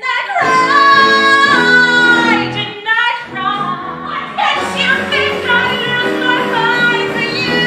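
A woman singing a musical-theatre number in full voice, holding long high notes at the start, pausing briefly about three seconds in, then singing on.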